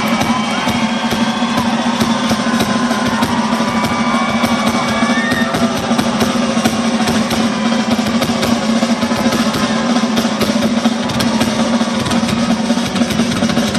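Drum kit played in a fast live drum solo: dense, rapid strokes and rolls on snare and bass drum, over a steady held low note.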